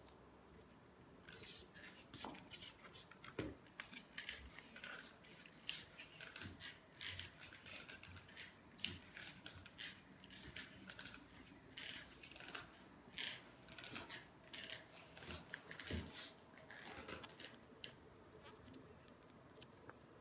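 Cats licking at a Ciao Churu lickable-treat packet, with wet tongue clicks and crinkling of the plastic wrapper, several a second and irregular, dying away near the end.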